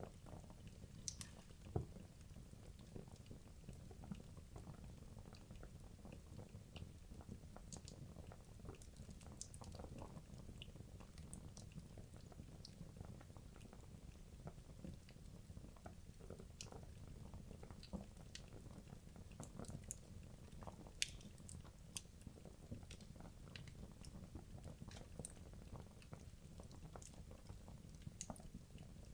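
Wood logs burning in a fireplace: quiet crackling, with frequent small pops over a low, steady flame rumble and two sharper pops, about 2 seconds and 21 seconds in.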